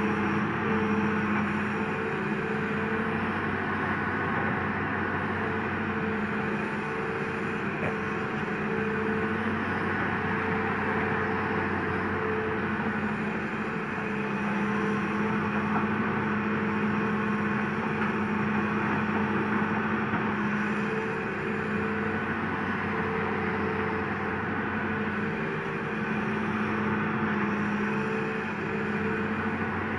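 Hitachi Zaxis 200 hydraulic excavator running steadily as it digs, with a humming tone that comes and goes every few seconds as it works.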